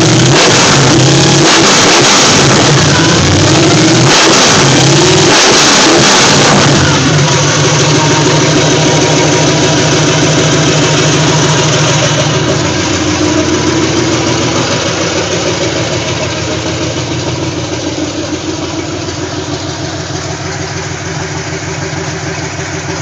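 Big-block Chevy V8, a ZZ502 stroked to 540 cubic inches on headers, revving hard in repeated rises and falls for the first several seconds. It then runs more steadily and grows quieter over the last ten seconds.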